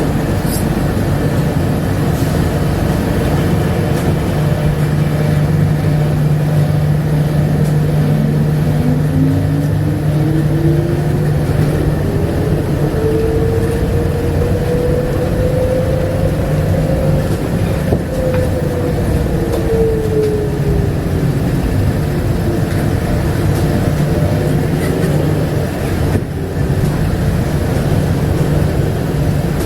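Running noise of a Bombardier APM100 rubber-tyred people-mover car heard on board: a steady low rumble with a hum partway through. A motor whine rises in pitch over several seconds, then falls again as the car speeds up and slows down.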